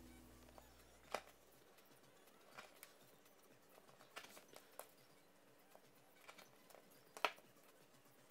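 Faint handling noises of a small leather piece being folded and pressed on a cutting mat: a few light taps and clicks. The sharpest knock comes about seven seconds in, when the hand tool is set down on the mat.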